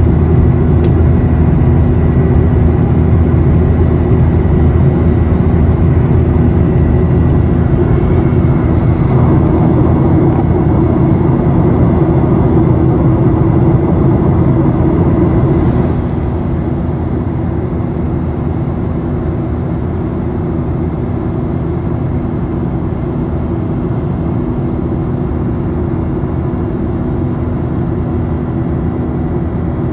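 Cabin noise of a Boeing 737-800 climbing: the steady rush of its CFM56 jet engines and airflow heard from inside the cabin, with a steady hum under it. It drops somewhat in level about halfway through.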